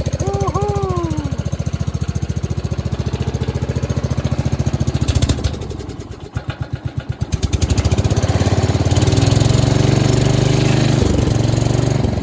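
Onan NB two-cylinder engine on a Gravely garden tractor running after a cold start. About five seconds in it slows nearly to a stall, each firing beat separate, then picks up again and runs steadily faster.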